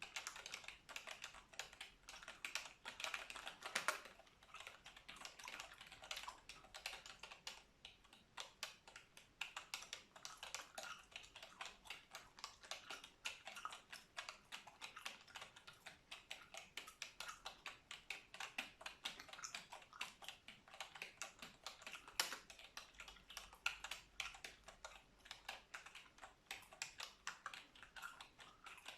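Computer keyboard typing: a continuous run of quick keystroke clicks, with a few louder key strikes about four seconds in and again past the middle.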